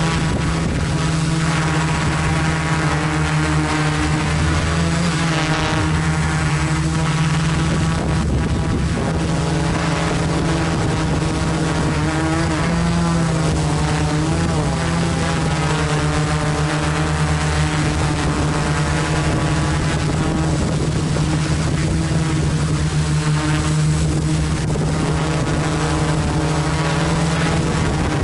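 FPV quadcopter's motors and propellers humming steadily while it hovers, the pitch wavering slightly with small throttle changes.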